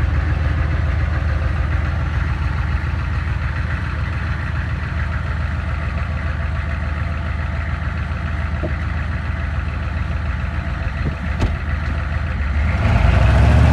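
Pickup truck engine idling steadily, then speeding up and getting louder near the end.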